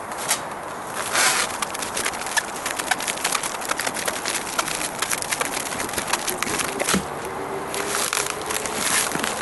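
Plastic stretch wrap crinkling and crackling as it is pulled off the roll and wrapped tight around trees, a dense run of irregular small snaps. A steady hum joins about seven seconds in.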